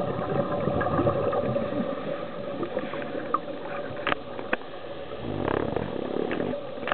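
Underwater ambience picked up by a camera in its waterproof housing: a steady hiss and hum, two sharp clicks about four seconds in, and a louder rushing spell near the end.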